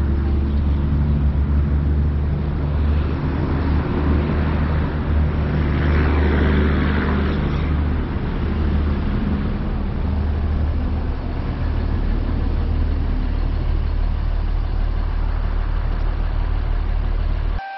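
Car engine running with a steady low rumble, heard from inside the car, with a swell of louder road noise between about three and eight seconds in. The sound cuts off abruptly just before the end.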